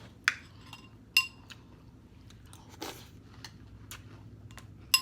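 Crunchy breakfast cereal being bitten and chewed in short, scattered crunches. About a second in, a spoon clinks against the bowl.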